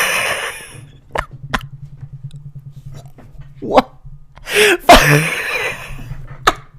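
A man making short vocal noises and mouth sounds as he crams a whole carrot into his mouth, loudest about five seconds in, over a low steady hum.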